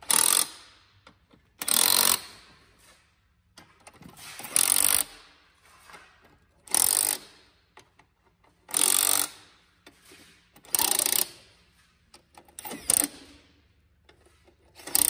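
Cordless impact driver rattling in about seven short bursts, roughly every two seconds, as it turns the threaded posts of a battery module hanger one after another to lift a set of four Kia EV6 battery modules out of the pack.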